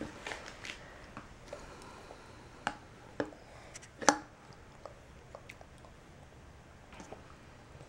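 A metal spoon clicking and scraping in a plastic bowl of yogurt as a toddler feeds himself, with small eating sounds from his mouth. A few sharp clicks stand out, the loudest about four seconds in.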